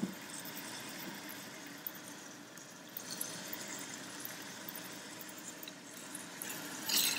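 Raw chicken pieces sizzling gently in hot oil in an Instant Pot's steel inner pot on the sauté setting, browning. Near the end a silicone spatula stirs them, and the sizzle grows louder.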